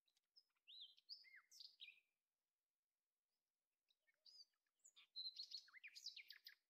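Faint bird song: quick chirps and whistled glides in two bouts, the first about a second in and the second from about four seconds in to near the end.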